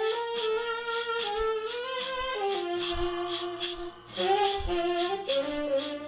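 Saxophone playing a melody of held and stepping notes with a small live band, over a steady shaker rhythm and soft bass-drum beats.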